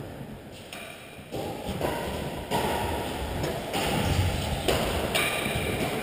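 Badminton rally: rackets striking the shuttlecock, with thuds of players' footsteps on the court floor.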